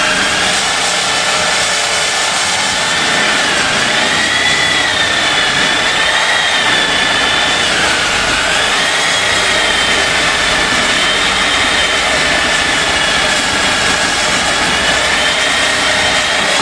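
Corded electric power tool cutting through an amplifier's metal heatsink: a steady high motor whine over harsh cutting noise, its pitch dipping briefly twice as the tool bogs under load.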